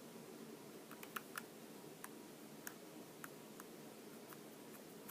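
Faint, irregular small clicks and ticks of a small screwdriver driving the two tiny bottom screws back into an iPhone 4/4S to hold its replacement back panel.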